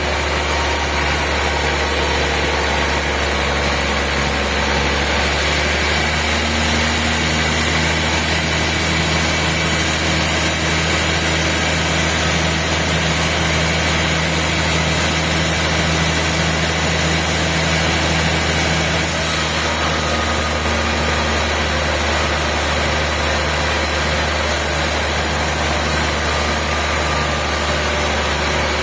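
Sawmill machinery running steadily with a low engine hum. Its tone changes slightly about six seconds in and again near twenty seconds.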